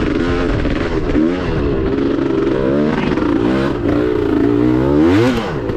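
Dirt bike engine revving up and down under load on a steep climb. The revs climb sharply about five seconds in, then fall away near the end.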